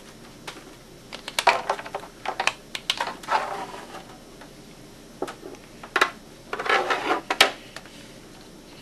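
Scattered clicks, taps and short rattles of small parts and tools being handled on a workbench, coming irregularly in small clusters.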